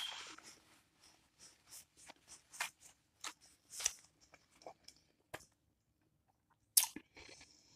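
Close-up chewing of a chicken quesadilla, with scattered wet mouth clicks and smacks. A paper napkin rustles at the start, and a single sharp click comes near the end.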